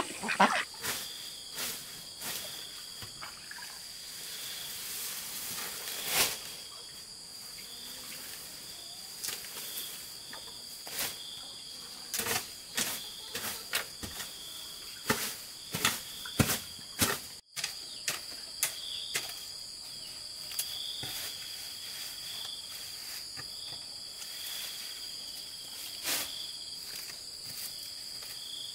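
Steady chirring of insects, with a high chirp repeating every second or two, over scattered knocks and scrapes of a hoe working soil and cut grass.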